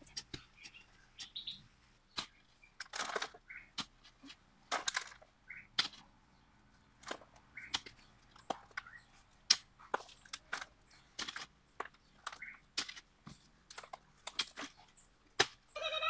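Hand hoes chopping into and scraping soil: irregular sharp strikes and scrapes, several a second at times, with short gaps between.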